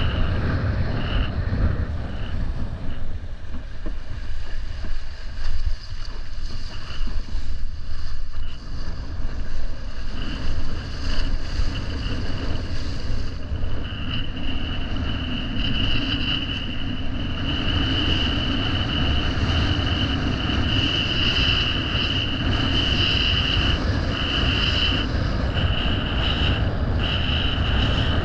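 Wind buffeting the microphone with rushing water while windfoiling, a heavy steady rumble. Over it a thin high whistle comes and goes, then holds steady from about halfway.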